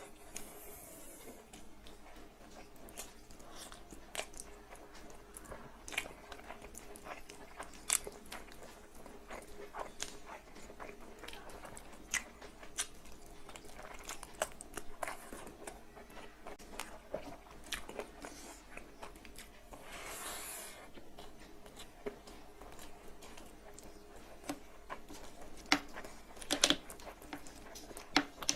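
Close-up chewing and biting of big mouthfuls of egg fried rice and spicy chicken kasha, with many short wet mouth clicks and a few louder clicks near the end.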